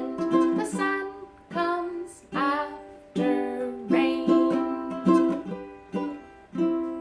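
A woman singing a children's song over a strummed string instrument. A final chord about six and a half seconds in ends the song and rings out, fading.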